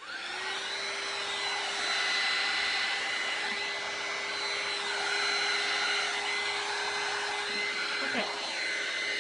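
Hair dryer blowing wet acrylic paint outward into a Dutch-pour flower on canvas. It runs at one steady pitch, switched on at the start and off at the end.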